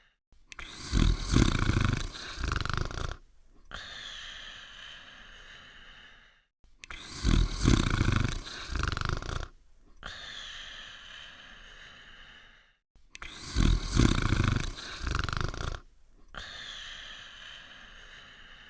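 Cartoon-style snoring from a sleeping dog, repeating in even cycles about every six seconds, three times. Each cycle is a loud rasping snore followed by a quieter whistling breath and a brief silent gap.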